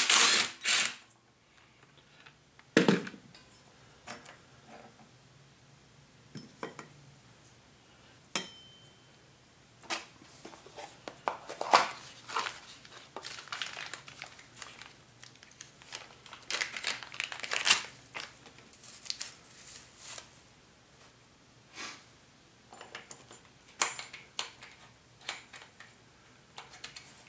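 Hand tools and small metal engine parts clinking and clattering while being handled, during work on a scooter's starter bendix. There are scattered sharp clicks and knocks, with quicker runs of clatter around the middle.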